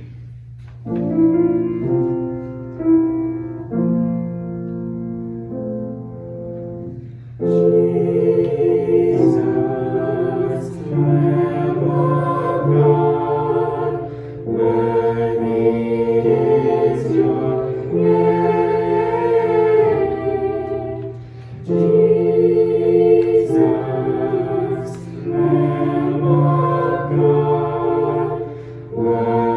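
A hymn: a keyboard introduction of held chords, then a choir comes in singing about seven seconds in.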